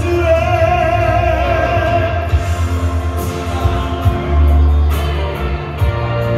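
A Dutch pop song with a steady beat, a heavy bass line and a held melody line, with singing in places.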